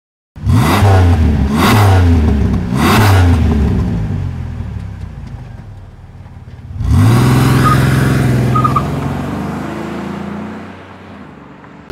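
Car engine revved in three sharp blips about a second apart, then a sweep up in pitch to a steady drone that slowly fades away.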